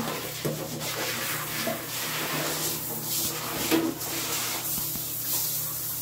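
Water spraying from a handheld shower head onto a puppy's wet coat and into a plastic tub: a steady hiss.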